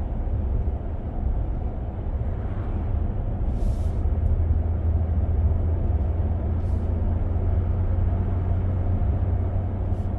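Steady low rumble of a 2025 Ram 1500 pickup heard from inside the cabin while driving: road, tyre and drivetrain noise, with a few brief clicks.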